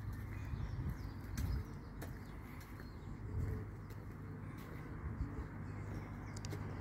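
Outdoor ambience with a steady low rumble and a few faint clicks, and a pigeon cooing faintly about halfway through.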